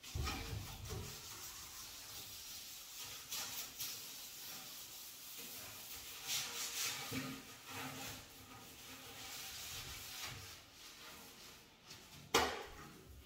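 Gloved hand scrubbing a glass shower door, a rubbing, scraping sound in uneven strokes as water stains are worked off the glass. A single sharp knock near the end.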